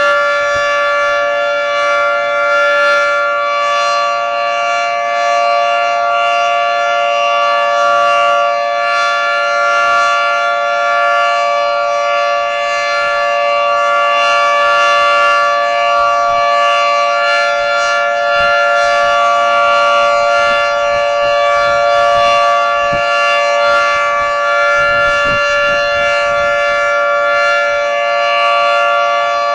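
Federal Signal 3T22 three-tone electromechanical outdoor warning siren sounding a steady chord at full speed during a test. Several pitches are held together without rising or falling.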